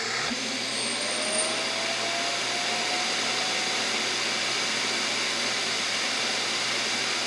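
iRobot Roomba Combo 10 Max dock's self-emptying vacuum motor running loud, pulling air and debris out of the robot's bin. Its whine rises in pitch over the first few seconds as it spins up, then holds steady.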